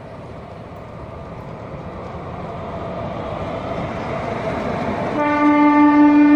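WAP-4 electric locomotive approaching and passing, the rumble of its wheels on the rails growing steadily louder; about five seconds in its horn sounds one long, steady, loud blast.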